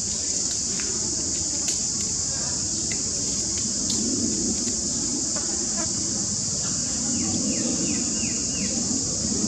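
Steady high-pitched drone of insects, with a low rumble beneath. Near the end there is a quick run of about six short high chirps.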